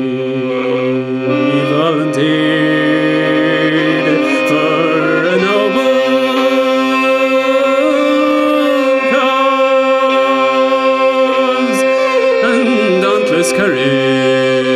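Fiddle playing a slow, ornamented air over a steady held drone.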